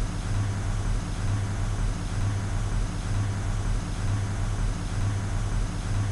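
Steady low hum with an even hiss behind it, unchanging throughout: the recording's background noise floor between narrated lines.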